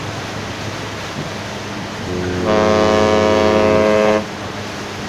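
A cruise ship's horn sounds one steady, deep blast of about two seconds, over a wash of water and wind.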